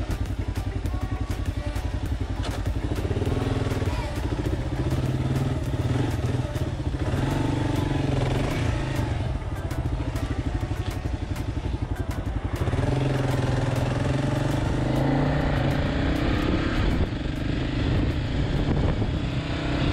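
Kawasaki KLR650 single-cylinder motorcycle engine pulling away and riding on, its note shifting in pitch over stretches of a few seconds, with short breaks between them.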